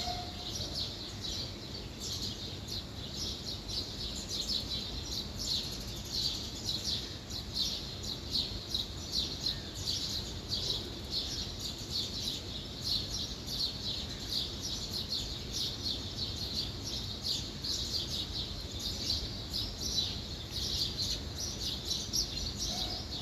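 Small birds chirping continuously in quick, overlapping high chirps, over a steady low background hum.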